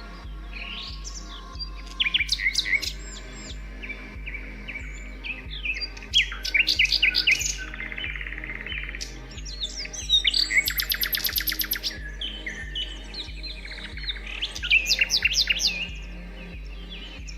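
Several songbirds chirping and singing over one another in bursts of quick whistled notes, with a fast, buzzy trill about eleven seconds in.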